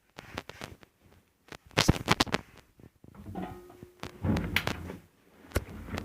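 AEG washing machine running: irregular clicks and knocks, likely laundry and fastenings tumbling in the drum, with short stretches of low motor hum and a brief steady tone a little over three seconds in.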